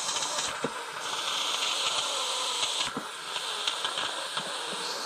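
Instant Pot pressure cooker venting steam through its pressure-release valve, under a paper towel, during a quick release: a continuous hiss that shifts in pitch and strength a few times, winding down as the pressure drops.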